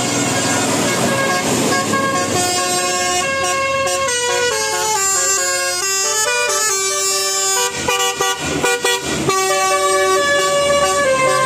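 Indonesian 'telolet' bus horn of the Basuri type, a multi-tone air horn playing a melody of held notes that step up and down in pitch, broken into quick choppy blasts about two-thirds of the way through.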